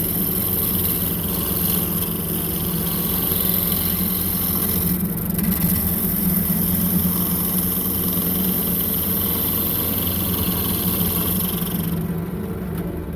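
Wood lathe running with a steady motor hum while a turning tool cuts into a spinning raw tree branch, roughing it out, which gives a harsh hissing cut. The cutting stops for a moment about five seconds in and stops again near the end, leaving the lathe's hum.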